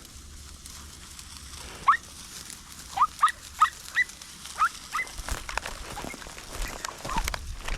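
A podenco hunting dog yelping: about seven short, high, rising yelps in quick succession, the cry a hound gives while chasing a rabbit.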